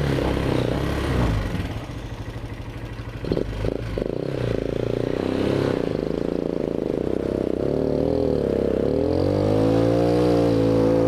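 ATV (four-wheeler) engine running on a trail, its pitch climbing as it revs up in the last few seconds, with a few clattering knocks about three seconds in.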